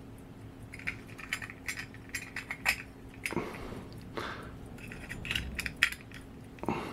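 Small irregular metallic clicks and light clinks of a silver pocket watch case being handled and opened to show the movement.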